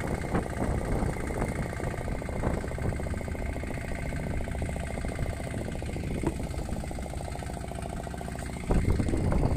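A small fishing boat's engine running steadily at idle, with a louder patch of bumping near the end.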